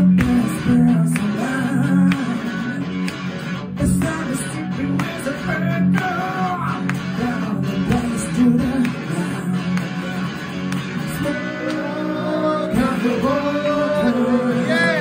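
A man singing while playing a Telecaster-style electric guitar through an amplifier in a live solo performance.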